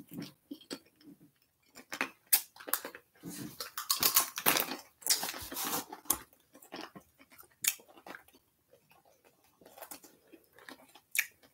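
Kettle-style jalapeño potato chips being bitten and chewed: irregular crisp crunches and crackles, thickest a few seconds in.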